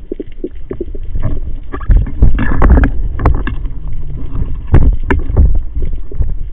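Water sloshing and bubbling around the camera, with irregular knocks and splashes, loudest about two to three seconds in and again near five seconds.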